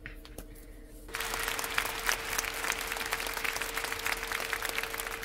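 Applause sound effect: a crowd clapping that starts abruptly about a second in.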